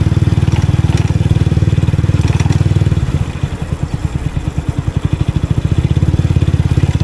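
Motorbike engine running with a fast, even low pulsing as the bike is ridden; it eases off about three seconds in and picks up again near the end.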